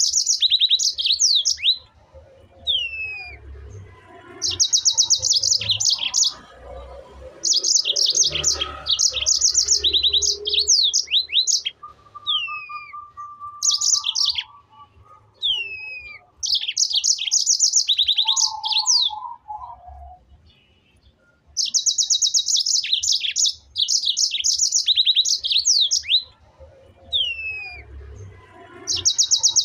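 Birdsong: repeated bursts of rapid, high trilled chirps, each lasting a second or two, with single downward-slurred notes in between.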